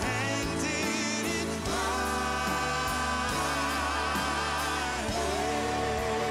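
Music: voices holding long notes with vibrato over sustained band accompaniment, moving to new held notes about two seconds in and again about five seconds in.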